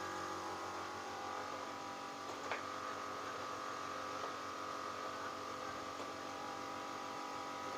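Electric rolling-shutter motor running with a steady hum as it lowers the steel shutter, with one faint click about two and a half seconds in.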